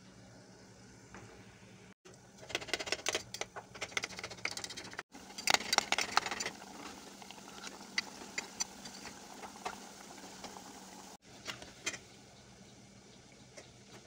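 Jiló fritters frying in hot oil in a metal pot: sizzling and crackling, densest a few seconds in, then thinning to scattered pops.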